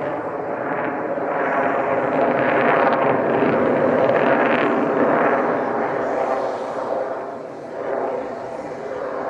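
Lockheed Martin F-22 Raptor's twin Pratt & Whitney F119 turbofan engines heard from below as the jet manoeuvres, a steady rushing jet noise that swells and eases and dips briefly about three quarters of the way through.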